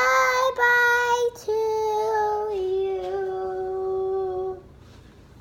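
A young girl singing unaccompanied, drawing out three sung notes; the last is held for about three seconds, stepping down in pitch before it stops.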